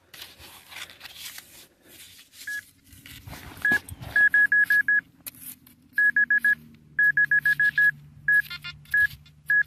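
Handheld metal-detector pinpointer beeping at one high fixed pitch: a couple of single beeps, then rapid trains of beeps from about four seconds in as the probe nears a buried metal target. Scraping and crunching of dry soil and stones comes in the first few seconds.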